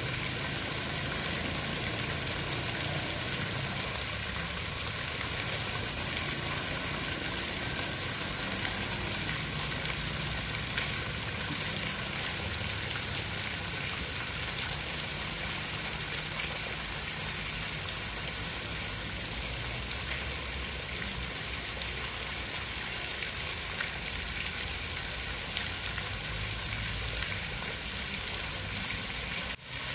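Steady rain falling, an even hiss with a little low rumble beneath it. It dips briefly just before the end.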